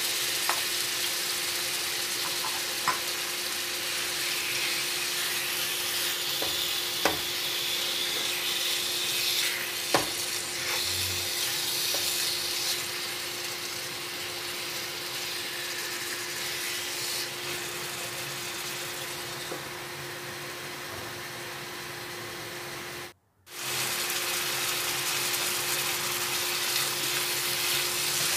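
Yogurt-marinated chicken pieces sizzling as they fry in a nonstick pan, stirred with a wooden spatula, with a few sharp knocks of the spatula against the pan. The sound cuts out for a moment about three-quarters of the way through.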